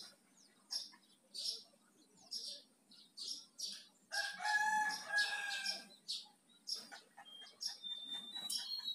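Yellow-vented bulbul giving short, high chirps about once a second, ending in a few short whistled notes. A rooster crows once, loudest, from about four to six seconds in.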